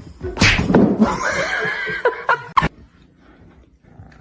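An animal's call with a wavering pitch, lasting about a second, followed by two sharp knocks.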